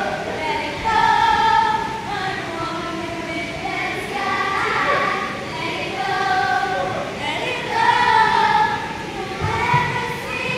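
A group of young children singing together with women's voices, unaccompanied, in phrases of long held notes.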